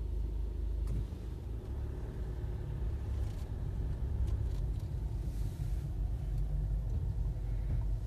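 Steady low rumble of a car's engine and road noise, heard from inside the cabin as it moves slowly in traffic.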